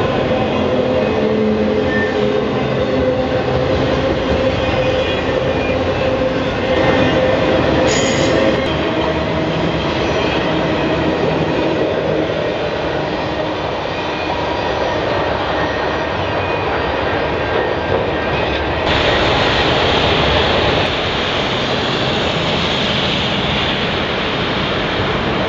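Autorack freight cars rolling past at speed: steel wheels rumbling and clicking over the rail joints, with faint thin wheel squeal. About three-quarters of the way through, the sound changes abruptly to a steadier, brighter hiss.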